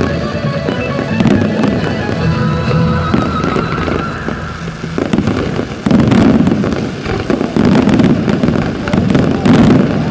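Fireworks bursting and crackling over music played for a pyromusical show. About six seconds in, it turns into a dense, loud barrage of bangs and crackle.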